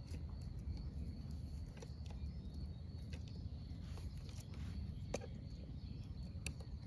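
Faint, scattered clicks of pliers gripping and bending the thin steel fins of a brush cutter's deformed anti-wrap disc, the sharpest about five seconds in, over a low steady outdoor rumble and a faint high steady tone.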